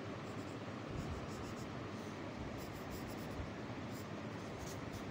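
Pencil scratching on drawing paper in short strokes now and then, over a steady background hiss.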